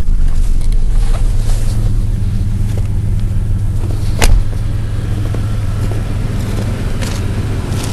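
1990 GMC S15 pickup's engine idling steadily, warming up after a cold start. One sharp knock about four seconds in.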